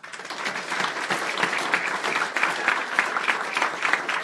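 Audience applauding: many hands clapping at once, breaking out suddenly and keeping up steadily.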